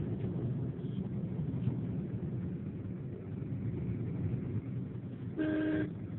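Steady low rumble of a vehicle driving on the road, heard from inside. About five and a half seconds in, a vehicle horn toots once, briefly.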